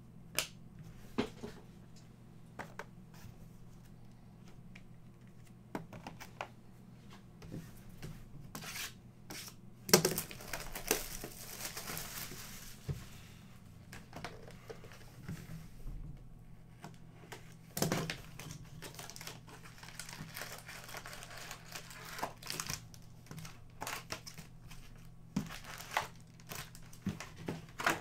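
Trading-card pack wrappers crinkling and tearing as packs are opened by hand, among scattered clicks of cards and wrappers being handled. The loudest moment is a sharp crackle about ten seconds in, followed by a few seconds of rustling.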